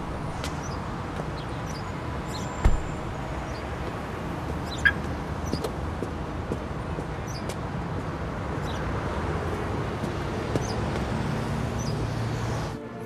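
City street ambience: a steady rumble of traffic with birds chirping here and there, and a single dull thump a little under three seconds in.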